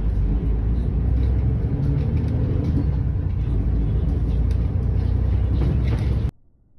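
Steady low rumble of a bus's engine and road noise heard from inside the passenger cabin, with faint rattles. It cuts off abruptly near the end.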